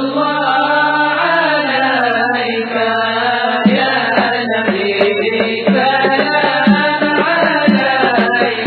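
Arabic devotional Mawlid chanting, voices holding a long, drawn-out melodic line of praise for the Prophet. From about four seconds in, a drum joins with a steady beat of roughly one strong stroke a second, lighter strokes between.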